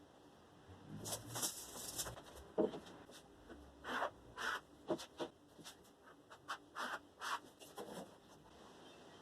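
A series of short scrapes and light knocks at an irregular pace, typical of hand work on wood.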